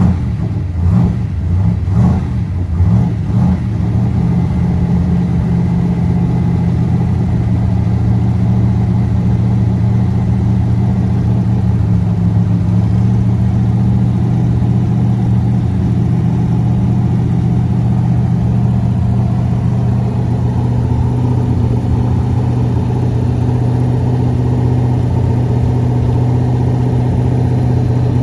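1966 Chevrolet Corvette Sting Ray's V8 just after a cold start, its speed rising and falling unevenly for the first few seconds, then settling into a steady idle. The engine is cold after sitting all weekend at about 38 degrees.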